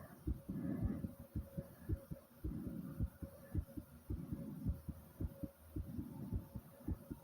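Fast human heartbeat after squats: a quick, even run of low thumps, the heart racing from exertion. A breath is heard near the start.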